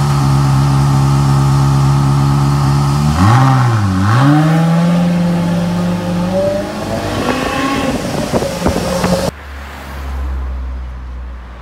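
Ferrari V8 sports car exhaust, very loud, running with a deep steady drone. About three seconds in the pitch dips and comes back up twice, then climbs slowly, with a few sharp crackles near the end. It cuts off suddenly about nine seconds in, leaving a quieter low rumble.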